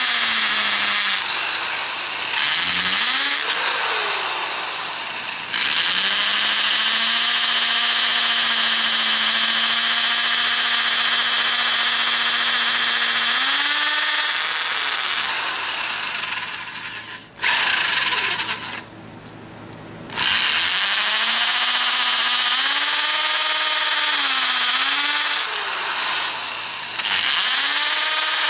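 Electric drill with a masonry bit boring into hardened foundry mix. The motor whine sags and recovers in pitch as the bit loads up, with a couple of short pauses and a longer stop about two-thirds through before drilling starts again.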